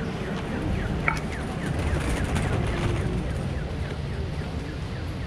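City street ambience: a steady low traffic rumble, with a run of short, high, falling chirps throughout and one brief high tone about a second in.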